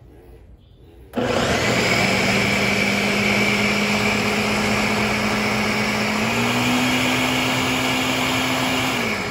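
Ninja countertop blender starting up about a second in and running at full speed, puréeing cooked peppers and onions in vinegar and water into hot sauce. Its motor pitch steps up slightly about six seconds in, and it starts to wind down near the end.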